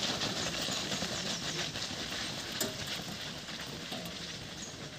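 Footsteps of a large group running on a dirt ground: a dense patter of many feet that fades steadily as the runners move away.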